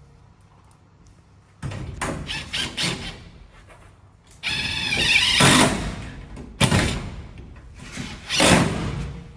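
Greenhouse door and window parts being handled and fitted into the frame: a series of knocks, rattles and scrapes, with a short squeak about five seconds in.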